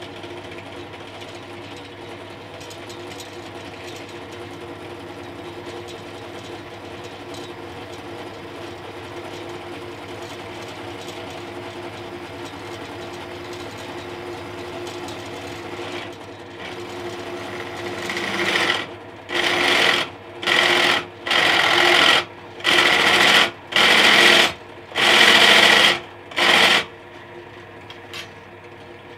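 Silverline 350W pillar drill running with a steady motor hum. Past the middle, a 12.5 mm bit is fed into aluminium bar in about eight loud cutting spurts, each under a second, with the hum between them.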